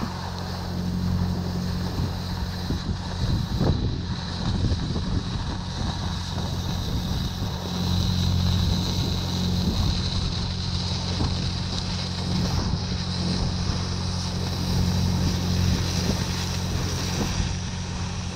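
Oxy-fuel cutting torch hissing steadily as it cuts through steel plate, with a steady low hum underneath.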